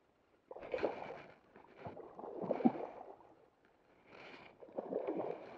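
Hooked sea trout splashing and thrashing at the water's surface, in three bursts about two seconds apart.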